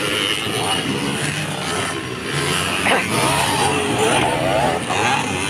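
Dirt bike engines racing on a motocross course, revving up and down as the riders work the throttle, with one bike passing close over a jump.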